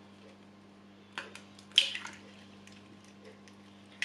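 A raw egg being broken open and dropped into creamed butter and sugar in a wooden bowl: a few short cracks of the shell, then a louder wet squish as the egg lands, about a second and a half to two seconds in.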